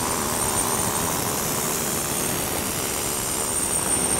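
Handheld air-powered stone-carving tool running against a stone: a loud, dense, steady noise with a thin high whine over it.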